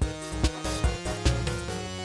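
Background music with a steady beat: upbeat video-game-style music.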